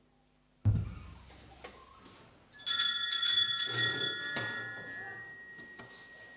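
A thump about a second in, then altar bells shaken in a quick cluster of bright rings that fade out slowly.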